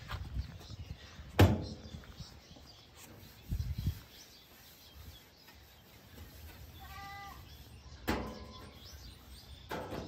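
Scattered knocks and thumps of someone climbing on and handling a tractor's sheet-metal bonnet. A sharp knock about a second and a half in is the loudest, with duller thumps later. A short animal call is heard about seven seconds in.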